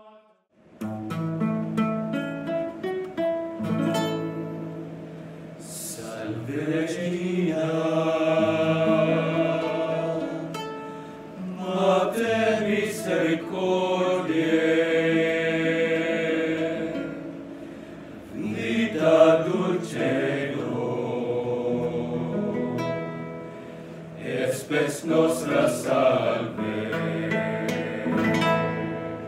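A group of men singing together, accompanied by a strummed acoustic guitar; the guitar plays alone for the first few seconds before the voices come in.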